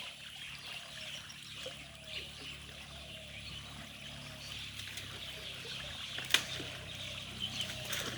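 Water trickling and splashing steadily, with a single sharp knock about six seconds in and a few lighter ticks near the end.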